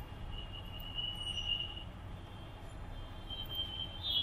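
Quiet background room tone: a low steady hum, with a faint high-pitched tone that comes in for about a second and a half and returns near the end.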